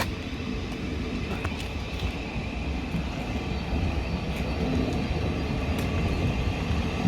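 Electric train approaching on the main line: a low rumble with a faint steady whine, growing gradually louder.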